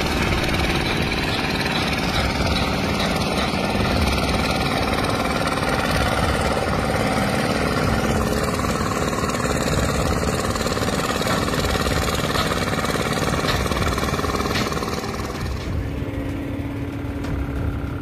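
Diesel engine of a tracked excavator running steadily. The sound thins out near the end.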